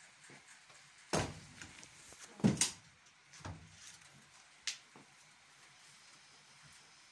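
A handful of separate knocks and bumps in the first five seconds, the loudest a double knock about two and a half seconds in, over faint room noise.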